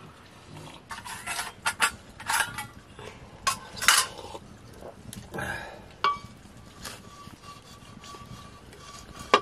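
A metal ladle scraping and clinking against a steel cooking pot and metal dishes, a cluster of sharp clinks and scrapes over the first six seconds. After that a faint steady high ringing tone lingers.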